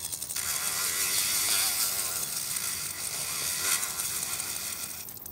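Handheld pen-style rotary tool spinning a small abrasive bit against a 3D-printed plastic part, grinding away a droop left by failed support material. It makes a steady high hiss whose pitch wavers as the bit bears on the part, and it stops near the end.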